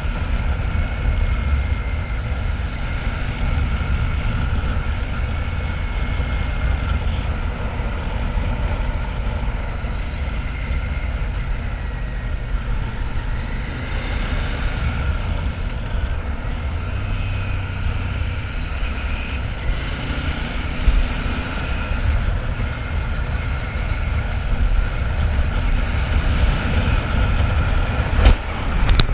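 Royal Enfield Shotgun 650's parallel-twin engine running steadily under way, a dense low rumble with faint steady whine above it; a brief sharp click near the end.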